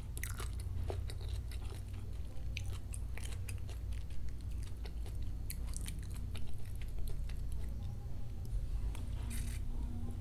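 Close-miked mouth sounds of drinking through a straw from a plastic bottle: irregular small wet clicks and swallows over a low steady hum.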